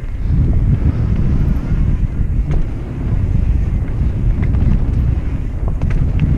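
Wind rumbling loudly on a GoPro's microphone while mountain biking down a trail, with a few scattered sharp clicks and rattles.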